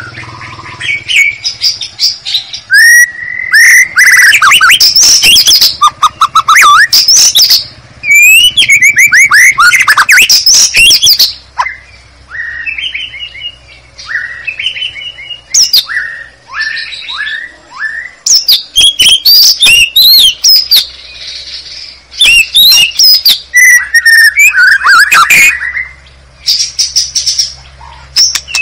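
White-rumped shama (murai batu) song played loud as a lure call: varied whistled phrases with rising and falling glides, fast trills and harsh rasping notes, and in the middle a run of short down-slurred notes about two a second.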